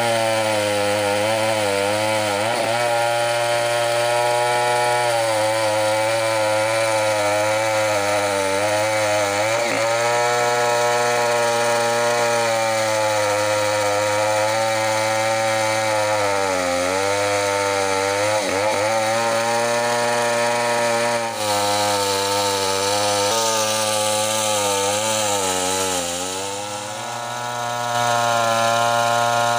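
Chainsaw running under load while ripping a wooden plank lengthwise, its engine pitch sagging briefly several times and recovering, with a longer, deeper dip near the end.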